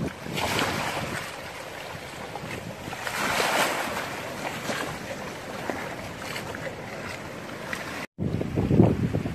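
Storm wind and crashing surf from Tropical Storm Pabuk, rising and falling in gusts. Near the end the sound cuts out for a moment, then comes back as low wind buffeting on the microphone.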